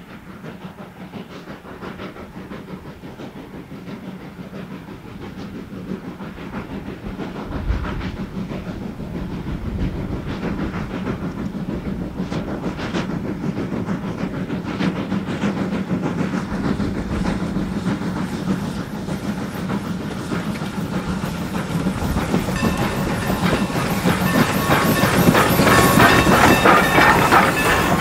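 Norfolk & Western 4-8-0 steam locomotive No. 475 approaching and passing with a passenger train, its exhaust beats and running gear growing steadily louder. The coaches then roll by with wheel clatter, and steady high squealing tones join in over the last few seconds.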